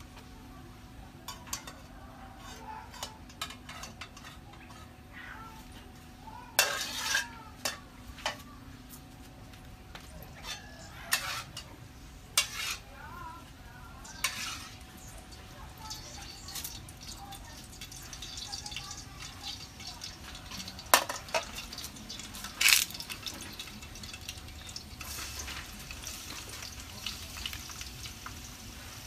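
Scattered clinks, scrapes and knocks of pots and utensils being handled during food preparation, with a few sharper clatters and a faint hiss that builds in the second half.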